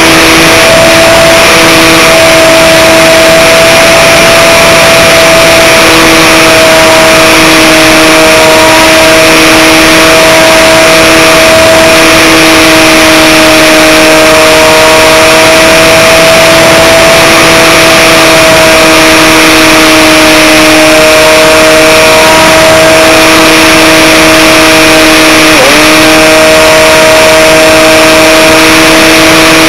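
Electric motor and propeller of an Aerobird Extreme RC airplane, heard very loud from the camera riding on the plane: a steady whine holding one pitch over a constant hiss, with a brief dip in pitch about 26 seconds in.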